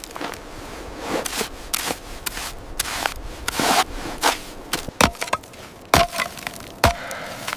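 A run of rough scraping and crunching strokes, then three sharp knocks about a second apart near the end.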